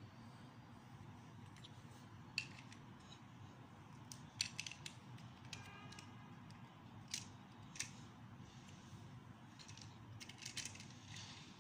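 Plastic Lego bricks clicking and tapping as they are handled and pressed together onto a small model, a handful of sharp clicks scattered through, over a faint steady low hum.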